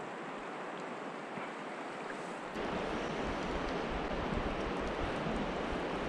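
Shallow stream current rushing steadily around the wading angler. About two and a half seconds in it gets louder, with a low rumble added.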